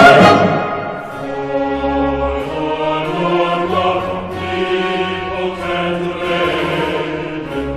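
Background music with sustained choir-like and orchestral chords.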